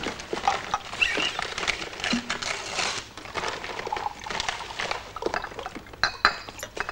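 Busy eating and drinking noises: paper wrappers rustling, with glass bottles and dishes knocking and clinking in quick, irregular clicks. There is a short ringing clink near the end.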